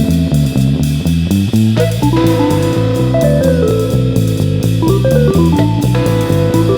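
A band playing live: guitar and bass guitar with drums, in a steady groove, with no singing.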